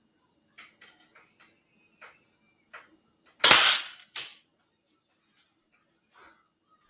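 A spring-powered SCAR-L airsoft rifle firing a single shot, a loud sharp crack about halfway through, with a second, quieter crack about half a second after it. A few faint small clicks come before the shot.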